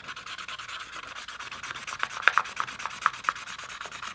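Felt-tip Sharpie marker scribbling rapidly back and forth across a paper plate: a steady, quick scratching, with a few sharper ticks in the second half.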